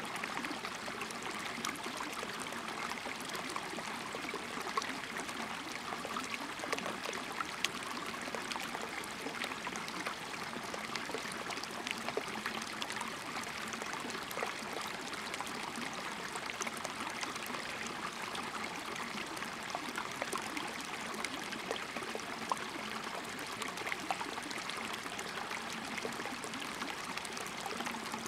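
Shallow stream trickling and babbling over stones and gravel, a steady water sound with small splashes scattered through it.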